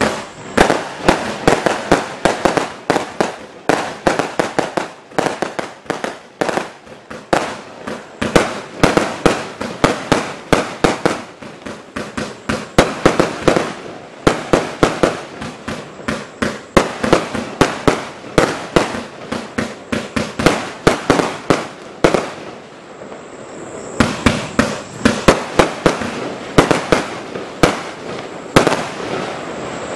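Gargantuan multi-shot fireworks barrage cake firing in rapid succession: a dense run of sharp launch thumps and burst bangs, several a second. The firing slackens briefly about two-thirds of the way through, leaving a hiss, then picks up again.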